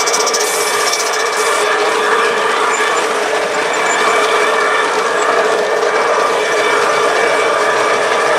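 G-scale model diesel locomotive running along a garden railway track: a steady whine of several held tones over a running hum, with a brief hiss about a second in.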